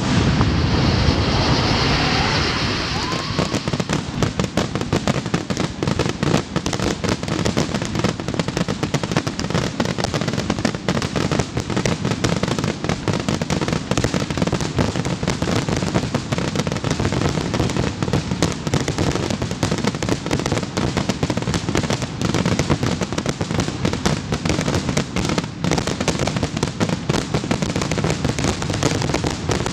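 Aerial fireworks going off in a dense, continuous barrage: many bangs and crackles a second, overlapping without a break.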